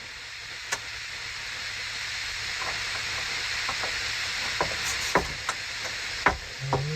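A steady hiss with a few short, light clicks and knocks scattered through the second half.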